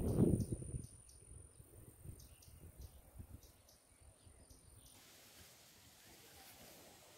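An insect's steady high-pitched trill, with short chirps repeating a few times a second, cuts off suddenly about five seconds in and leaves only faint hiss. A louder low rumble fills the first second.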